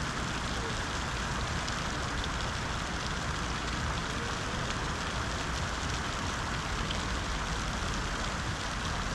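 Steady, unbroken rushing noise of falling water.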